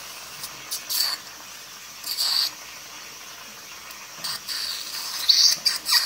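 Dental suction tip sucking water and saliva from the patient's mouth in about four short bursts over a steady hiss.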